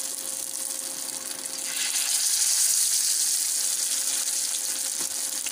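Masala-coated whole fish shallow-frying in a little hot oil on a tawa: a steady sizzle that swells louder about two seconds in as a second fish goes into the pan. A faint steady hum runs underneath.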